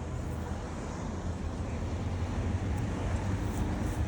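Steady low rumble of outdoor vehicle noise, with no single event standing out.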